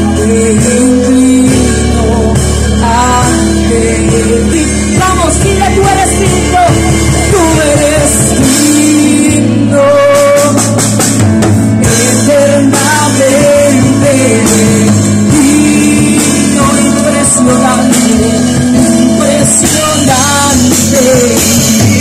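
Live Christian worship music played loud: a woman singing into a microphone over keyboard and drums.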